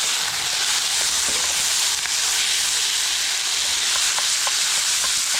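Onions frying in hot oil in a pan for a curry: a steady sizzle with scattered small crackles.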